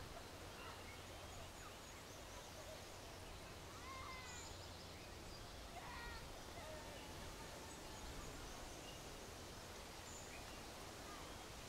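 Quiet outdoor nature ambience: a steady background hiss with scattered songbird chirps, a few short rising-and-falling calls about four and six seconds in.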